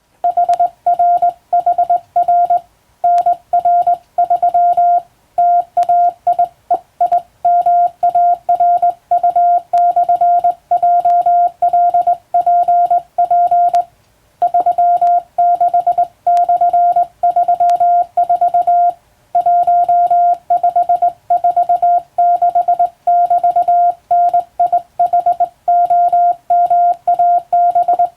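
Morse code (CW) sent as a single-pitched beep, keyed on and off in short dots and longer dashes at a brisk, even pace, with short breaks between groups.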